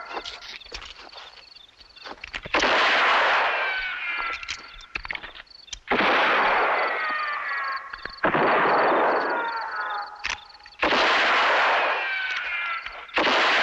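Bullet ricochet sound effects: five sharp shot-like cracks, each trailing off in a falling whine, coming every two to three seconds. Scattered small clicks and knocks fill the gaps between them.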